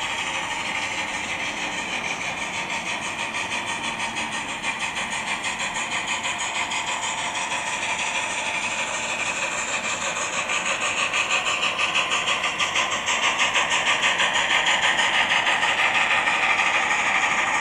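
HO-scale GMAM Garratt steam locomotive model's Loksound 5 sound decoder playing steam exhaust chuffs through its small onboard speakers, a quick, even beat. It grows louder in the second half as the locomotive comes closer.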